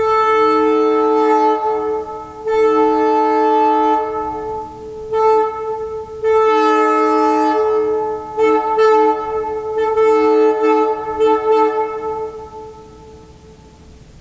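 Leslie S2M two-chime locomotive air horn sounding a steady two-note chord in separate blasts: two long blasts, a short one, then a longer stretch broken into a quick run of short toots.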